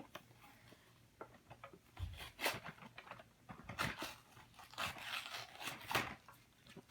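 Plastic blister packaging and cardboard of a Hot Wheels car multi-pack being pulled and torn open by hand: irregular crackling and crunching, starting about two seconds in.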